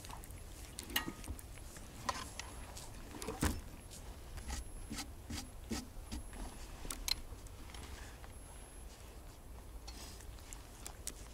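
A cat licking and shifting about in a blanket-lined wire bike basket: scattered soft clicks and rustles, the sharpest about three and a half seconds in, over a steady low rumble.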